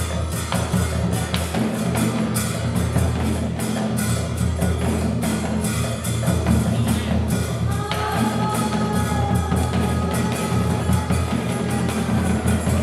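Traditional Vietnamese music with rapid drum and wood-block strikes, the accompaniment of a water puppet show. About eight seconds in, a high held melody line with slight glides joins the percussion.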